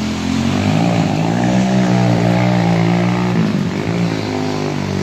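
A motor vehicle's engine running close by at a steady pitch, which drops briefly about three and a half seconds in and then picks up again.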